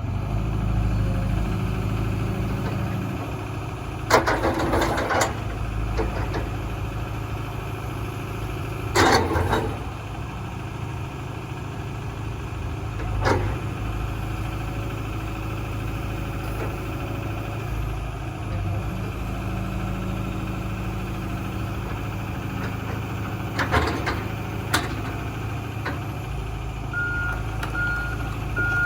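Hitachi ZX240LC-3 excavator's diesel engine running steadily, with a few loud short bursts of noise from the machine. Near the end its travel alarm starts beeping at an even pace.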